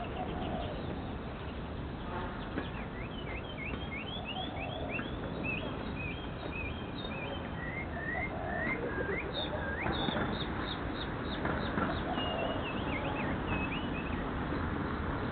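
Birds chirping in runs of short, quick notes over a steady background hiss.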